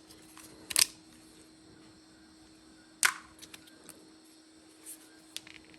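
Sharp clicks and knocks of parts and tools being handled while an oscillating multi-tool is taken apart: a loud double clack about a second in, another loud clack about three seconds in, then a few lighter ticks. A faint steady hum runs underneath.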